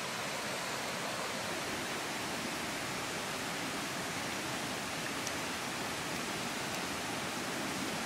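Stream or river water flowing, a steady even rushing hiss.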